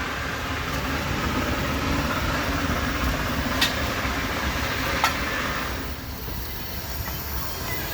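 Miniature steam engine standing in steam: a steady rushing hiss over a low rumble that eases off about six seconds in, with two short clicks in the middle.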